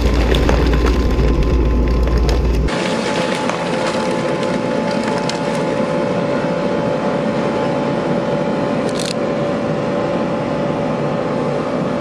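12-tonne Ammann road roller's diesel engine running steadily while its steel drum rolls over an LCD TV, crackling and snapping the plastic and glass as it crushes them. A heavy low rumble fills the first two and a half seconds, then drops away.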